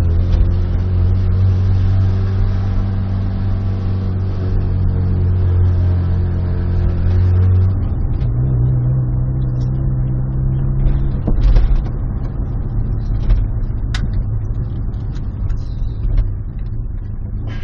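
Car engine with a very loud exhaust droning while driving. The drone shifts in pitch about eight seconds in and again about three seconds later as the revs change. A single sharp click comes later on.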